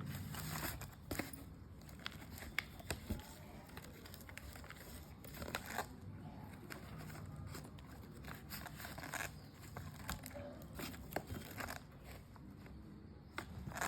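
Biscuit packaging being handled: crinkling and rustling in short bursts, with scattered light clicks and taps.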